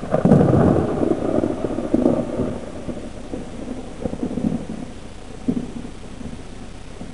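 Thunder from a nearby lightning strike: a sudden loud crack just after the start, then a rolling rumble that swells again several times and dies away.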